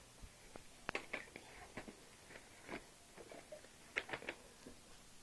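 Faint scattered clicks and rustles of plastic VHS tape cases being handled and shuffled, with three quick ticks about four seconds in.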